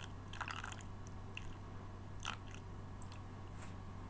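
Scattered soft crackles and light clicks as slime egg activator granules are sprinkled into a bowl of white glue mixture, over a steady low hum.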